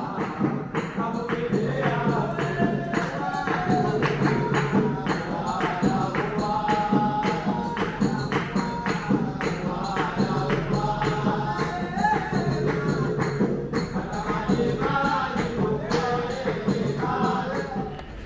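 Music with singing voices over a quick, steady beat of percussion hits, about three a second; it drops away near the end.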